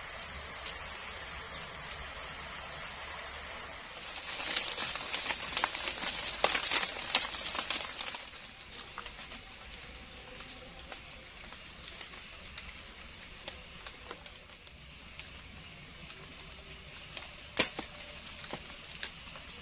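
A steady hiss with a burst of close rustling and crackling from about four to eight seconds in, then scattered clicks and one sharp click near the end.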